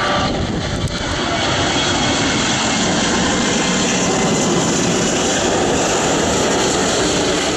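Boeing 777-300 twin-jet airliner on final approach, its engines at approach power: a loud, steady rush of jet noise with a faint whine on top.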